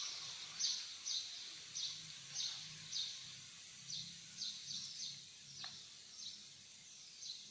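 Small birds chirping: a run of short, high chirps, roughly two a second with a few short gaps, over a faint low hum.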